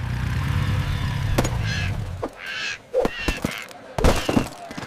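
Seagull squawks, four or five short calls in quick succession, as sound effects. A low motor hum runs underneath for the first two seconds, then stops. Sharp knocks come between the calls.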